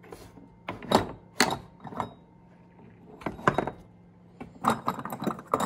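Handling noise: sharp clicks and knocks in three bunches, the last a quick run of several clicks near the end.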